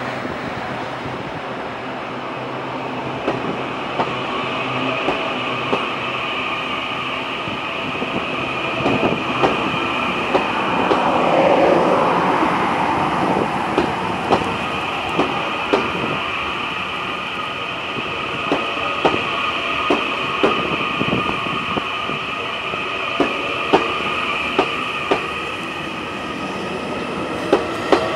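Taiwan Railways EMU800 electric multiple unit pulling out and gathering speed, its traction motors giving a steady whine while the wheels click over rail joints, the clicks coming more often in the second half.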